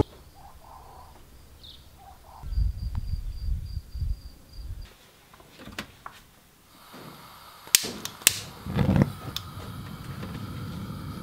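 Gas stove burner being lit: several sharp clicks of the igniter, a low whoosh as the gas catches, then the steady hiss of the burning flame. Before that, a low rumble of wind on the microphone.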